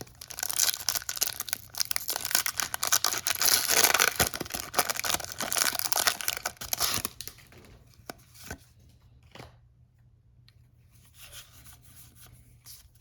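Foil booster-pack wrapper being torn open and crinkled, loud and crackly for about seven seconds. After that come only a few light clicks and faint rustling.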